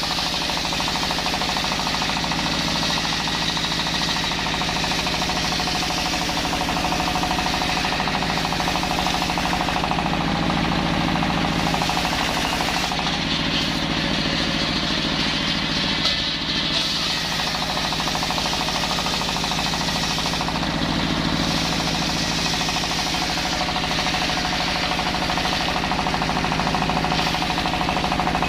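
Engine-driven circular saw running steadily while sawing timber into rafter stock, with a continuous engine drone and a rattling, knocking beat.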